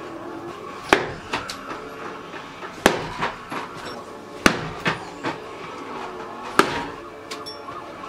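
Steel throwing stars cut from 4 mm sheet striking a dartboard: four sharp hits about two seconds apart, each followed by a softer knock or two.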